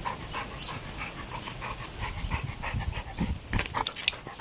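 Dog panting in quick, even breaths, with a few short sharp bursts of noise near the end.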